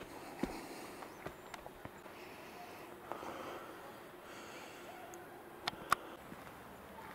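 Faint, quiet forest ambience with a few scattered sharp clicks, the loudest two close together about six seconds in.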